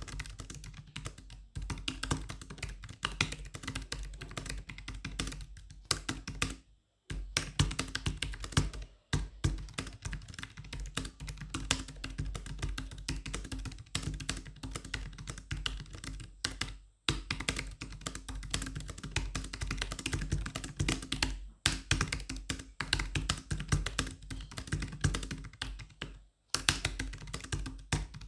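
Steady, fast typing on a Dell KM7120W wireless keyboard: a dense run of key clicks, broken by a few short pauses.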